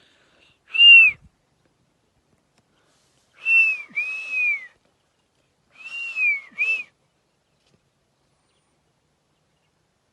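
Parrot whistling: three short whistled calls a couple of seconds apart, each a clear tone that rises and falls; the second and third are double notes.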